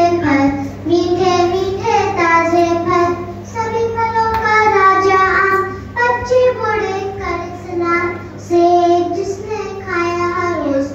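A young girl singing a Hindi children's poem into a microphone, in held, sing-song notes with short pauses between phrases, over a steady low hum.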